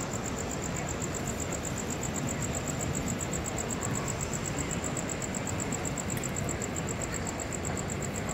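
Steady outdoor background noise, a dull even hum and hiss with no distinct event, with a faint, rapidly pulsing high tone running through it.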